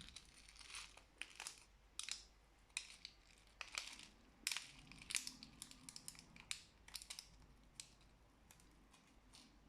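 Close-up handling sounds: a run of irregular sharp crackles and clicks, thinning out near the end.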